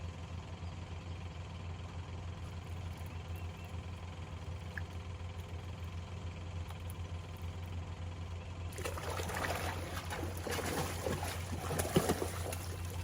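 Water splashing and dripping from a hooked catfish being brought up to the boat, starting about two-thirds of the way in, over a steady low motor hum.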